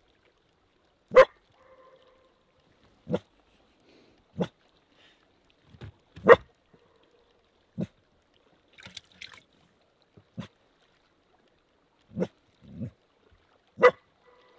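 A dog barking at its own echo: about eight sharp single barks, one every second or two, several followed about half a second later by a fainter echo coming back.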